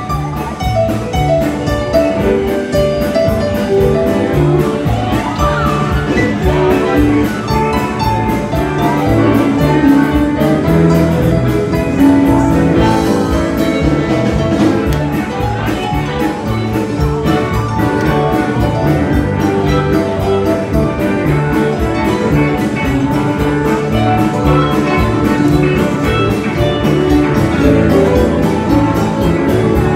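Live rock band playing an instrumental passage: drum kit keeping a steady beat under a keyboard solo, with electric guitars.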